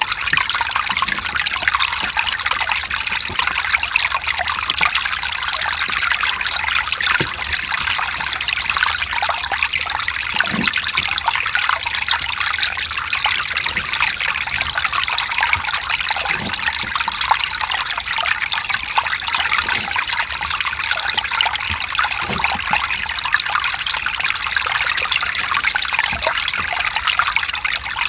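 Mountain stream running over rocks: a steady, even rushing and trickling of water, with small irregular gurgles.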